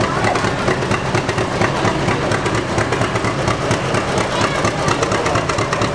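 Antique John Deere two-cylinder tractor engine pulling a weight-transfer sled under load, its exhaust firing in a fast, even popping rhythm.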